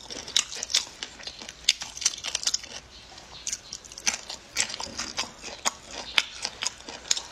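A person chewing and biting food close to the microphone: an irregular run of sharp, crisp crunches and wet mouth clicks, several a second.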